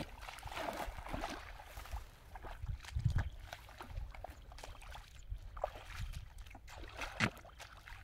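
Bare feet wading through shallow muddy water: irregular splashing, sloshing steps, with a louder splash about three seconds in and another near the end.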